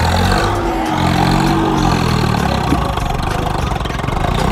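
Swaraj 855 FE tractor's three-cylinder diesel engine running at a medium throttle setting while the tractor works through loose dirt. The engine note is loud and steady, its pitch wavering slightly up and down.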